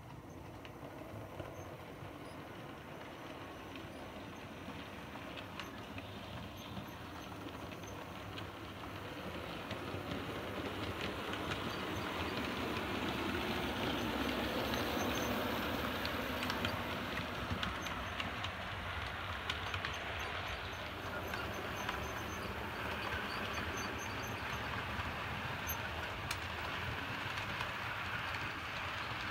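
OO gauge model steam train, double-headed by a Midland 4F and a Black Five, running along the track with a steady rolling rumble and faint clicking of wheels over rail joints. It grows louder up to about halfway through as the train passes close, then runs on steadily.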